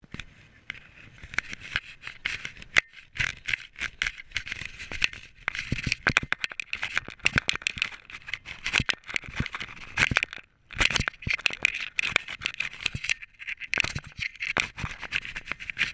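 Specialized Enduro mountain bike rattling down a rough dirt trail: many sharp knocks and clatters as the bike hits bumps, over steady tyre noise on dirt. The sound drops out briefly about ten and a half seconds in.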